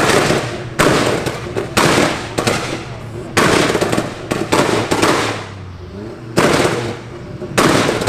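A series of loud crackling bangs in bursts roughly a second apart. Each burst starts sharply and trails off as rapid popping.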